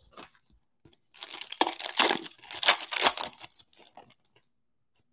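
Foil wrapper of a 2020 Donruss football card pack being torn open and crinkled by hand. The crackling starts about a second in and lasts about two seconds, then trails off into a few scattered crinkles.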